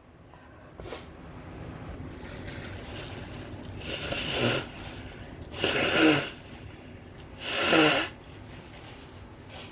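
A woman's sneezing fit: three loud, breathy bursts with a falling voice, about two seconds apart, starting about four seconds in.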